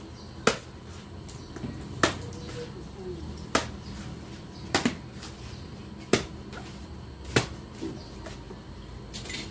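Machete blade chopping into a young green coconut: six sharp whacks, about one every second and a half, one of them a quick double strike.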